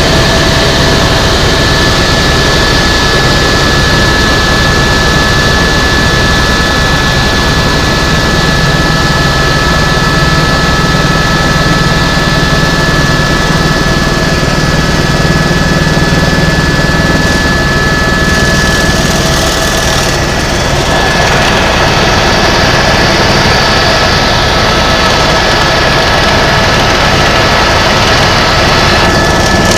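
Helicopter engine and rotor noise heard inside the cabin in flight: a loud, steady turbine whine with a few fixed high tones over a fast low beat from the rotor. It shifts slightly in tone about two-thirds of the way through.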